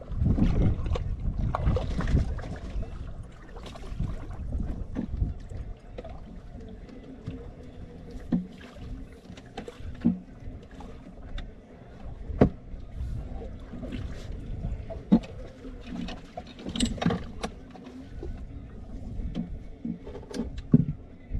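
Low rumble of wind and water around a small fishing boat, loudest in the first few seconds, with irregular knocks and clatter of gear being handled on the deck.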